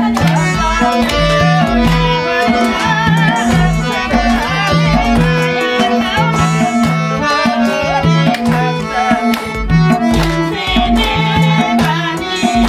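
Traditional-style dance music with a steady, repeating drum beat and a melody running over it.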